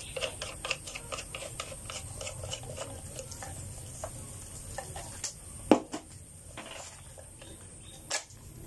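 Plastic parts of a cordless power spray gun being handled and fitted together: many small clicks and rattles, with a sharper knock a little before six seconds in and another near the end.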